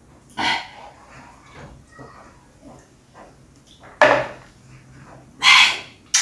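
Close-up mouth sounds of a person eating: quiet chewing, three loud breathy puffs (about half a second in, at four seconds, and around five and a half seconds), and a sharp smack near the end.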